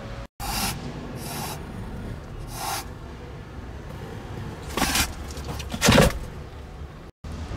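A hand brushing and rubbing against a cardboard box, with a few short scraping rustles and two louder scrapes about five and six seconds in, the second the loudest.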